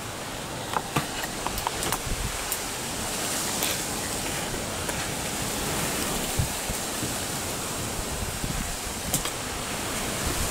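Small wood fire of split timber and kindling burning in a brick fire pit. There is a steady rushing hiss, with scattered sharp crackles and pops, most of them in the first few seconds.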